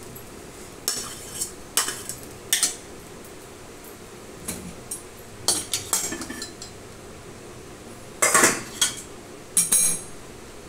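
Steel spatula scraping and clanking against a stainless-steel kadai and a steel bowl, with steel utensils knocking together: a string of sharp clanks and short scrapes, the loudest about eight seconds in.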